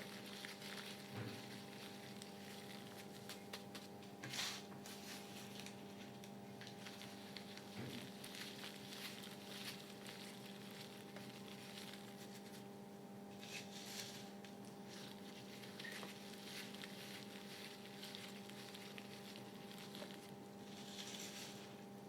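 Gym chalk crumbling and dissolving in water: faint fine crackling with a few soft taps, over a steady low hum.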